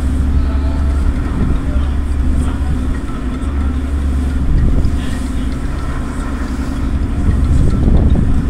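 Halifax harbour passenger ferry under way: its engine runs as a steady low drone with a constant hum, over a heavy, uneven low rumble heard on the open deck.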